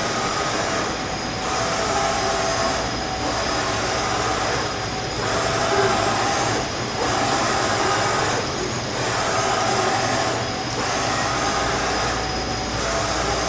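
Bridgeport Romi EZ-Path S CNC lathe running: a steady mechanical hiss and hum with a faint high whine, dipping briefly about every two seconds in a regular cycle.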